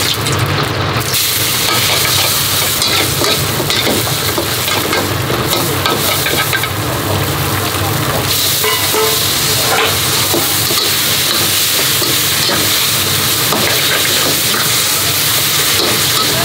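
Noodles and vegetables sizzling as they are stir-fried in a hot wok, with a metal ladle scraping and clinking against the pan. The sizzle jumps up about a second in and becomes steadier and more hissing from about eight seconds in.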